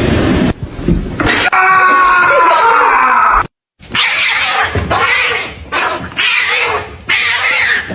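A cat's long, drawn-out meow lasting about two seconds.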